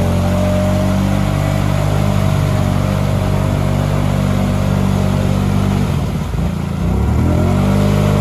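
Can-Am ATV's V-twin engine held at high revs, working hard in deep mud. About six seconds in the revs drop briefly, then climb back up.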